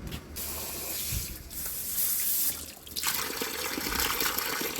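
Water running from a tap or pipe in a steady hiss; it dips briefly and comes back fuller about three seconds in.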